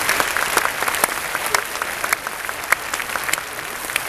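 A large stadium crowd applauding, with single sharp claps standing out close by. The applause eases slightly toward the end.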